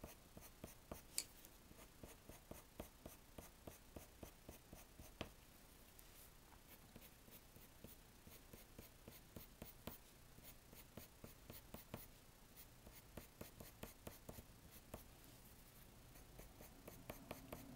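Colored pencil flicking quick short strokes across paper: a fast, faint run of scratchy ticks, about four or five a second.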